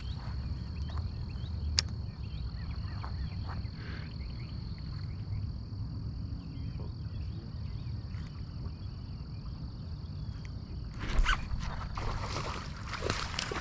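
Steady high-pitched insect trill over a low outdoor rumble, with one sharp click about two seconds in. The trill stops about eleven seconds in, and louder rustling noises follow.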